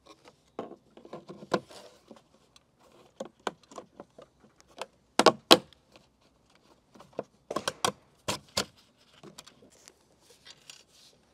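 Plastic dry verge unit clicking and knocking against the roof tiles as it is pushed and fitted into place by hand, the loudest knocks about five seconds in and again around eight seconds in. Near the end, a faint rattle of handling.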